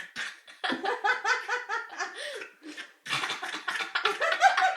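A person laughing a cough-like laugh: two long runs of rapid, staccato bursts, about six a second, with a short break about three seconds in.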